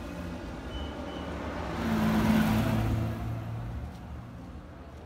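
A motor vehicle driving past, its engine hum and road noise swelling to a peak about two seconds in, then fading away.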